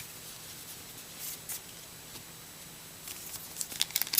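Faint handling of baseball cards and a foil card-pack wrapper, with a few soft ticks, then crisp crinkling and crackling of the wrapper building up about three seconds in.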